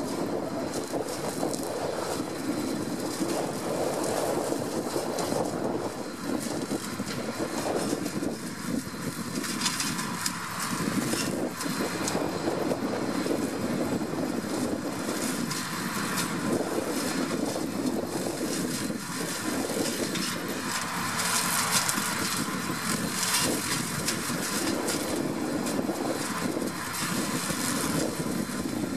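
A New Holland 8360 tractor's diesel engine runs steadily under load while its side-arm flail hedge cutter chops through hedge branches. Over the engine's continuous drone there is a crackling of cut wood, which swells for a few seconds about three-quarters of the way through.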